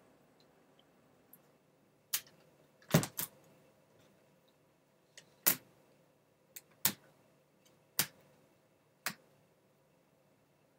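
Sharp clicks and light knocks from small screwdriver and laptop plastic parts being handled during reassembly of a laptop display. There are about seven separate strikes, roughly one a second, with a close double near the start.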